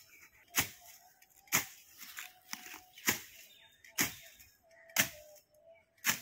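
Long-handled garden kirpan blade swung through weeds, swishing and slicing the stems with six sharp strokes about once a second.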